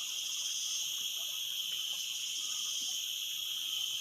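A steady, high-pitched chorus of crickets, holding evenly at several pitches.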